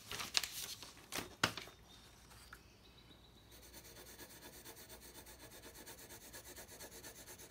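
Sheet of drawing paper shifted and rustled on a table, with a few sharp rustles in the first second and a half, then a pencil shading on paper in quick, even back-and-forth strokes.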